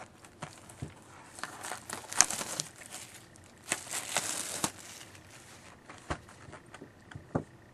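A sealed cardboard box of hockey card packs being opened by hand: wrapping crinkling and tearing in two spells, about a second and a half in and again near four seconds, with small clicks and taps of the cardboard being handled.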